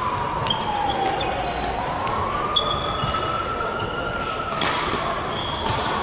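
Badminton rally: about five sharp racket strikes on the shuttlecock, roughly a second apart and loudest a little before midway, with short high squeaks of court shoes on the wooden floor, echoing in a large hall. A faint tone slowly falls and then rises underneath.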